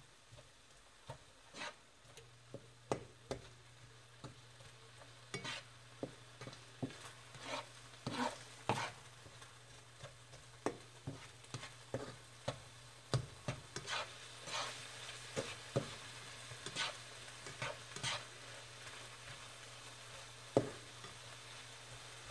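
A cooking utensil stirring and knocking in a pan of ground beef, in many irregular clicks and scrapes over a faint sizzle. A steady low hum comes on about two seconds in.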